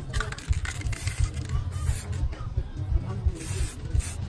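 Aerosol spray paint can hissing in several short bursts as a metal sprocket is coated, over a steady low rumble.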